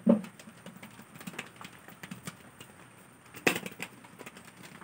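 A tomato and a razor blade rattling and knocking inside two bowls held rim to rim and shaken by hand. It is a scatter of small clicks, with louder knocks just after the start and about three and a half seconds in.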